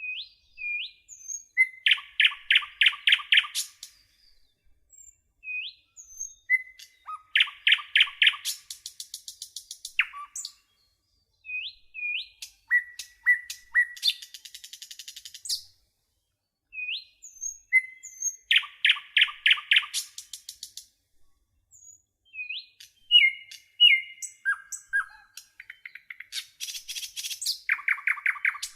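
A small songbird singing the same song over and over, about every five to six seconds: a few short rising whistles, a quick run of about six loud, clear notes, then a high buzzy trill.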